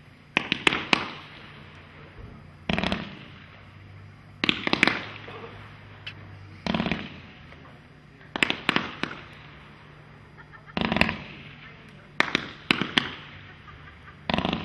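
Red Rhino Fire Horse (aka Wildfire) 500-gram repeater firework cake firing shot after shot, about one every two seconds. Each is a sharp bang, some in quick strings of two or three pops, fading into a hiss before the next.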